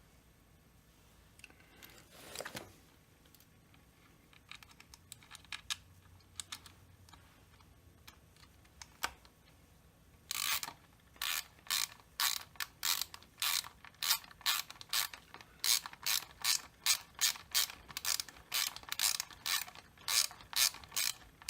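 Ratchet clicking, first a few scattered small clicks and a brief rustle, then from about halfway a steady run of sharp clicks, about three a second.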